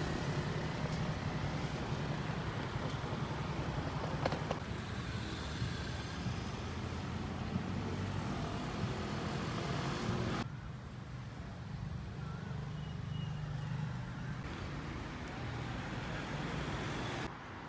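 Street traffic: motor scooters and cars running and passing on a city road, a steady engine hum. It drops to a quieter level about ten seconds in.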